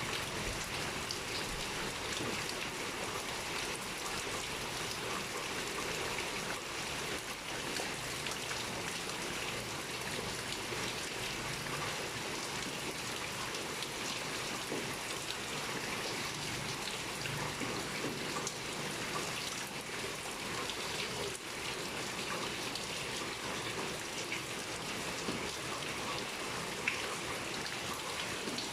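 Heavy rain pouring steadily, a dense even hiss with many individual drops pattering on a surface.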